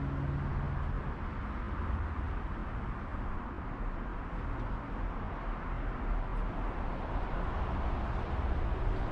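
Steady outdoor town ambience: an even, low rumble of distant road traffic with no distinct events.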